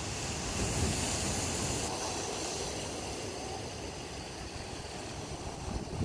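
Ocean surf breaking on the rocky shore and washing back, a steady rushing hiss that swells about half a second in and slowly eases off.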